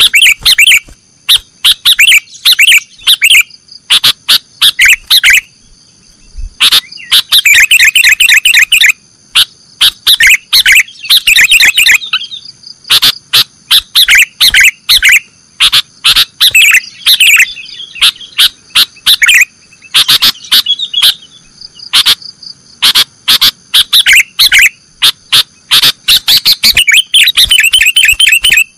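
Sooty-headed bulbul (kutilang) singing loudly in the 'nggaruda' style: quick runs of sharp, chattering notes in phrases of a second or two, again and again with short pauses between. A faint steady high whine sits underneath.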